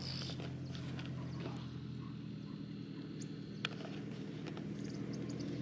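A steady low hum, with a single sharp click about three and a half seconds in and a few faint high ticks over it.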